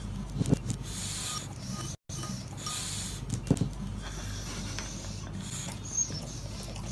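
Chains of a hanging basket swing creaking and clicking as it sways, with two louder clicks about three seconds apart, over a steady low hum.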